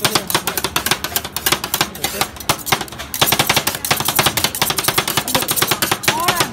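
Metal spatulas rapidly chopping and scraping ice cream mix on a frozen steel plate, a fast, continuous clatter of metal striking metal, as the mix freezes while Thai rolled ice cream is made.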